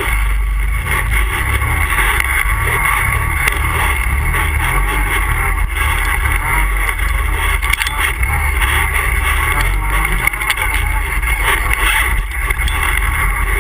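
ATV engine running steadily while the machine is ridden, loud and continuous with no pauses.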